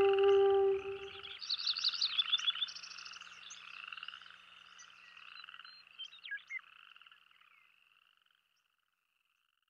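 A held electronic music note stops about a second in. A chorus of high, rapid chirping and trilling animal calls follows and fades away to silence.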